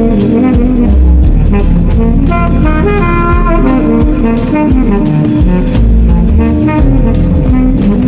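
Jazzy background music with brass, likely saxophone, over a steady drum beat.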